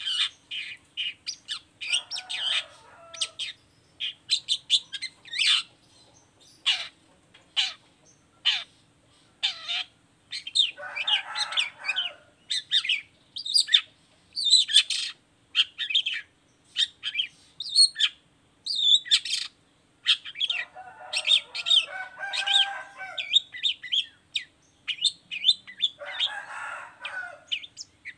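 Long-tailed shrike in full song: a rapid run of short, sharp chirps and whistles, broken several times by lower, harsher chatter.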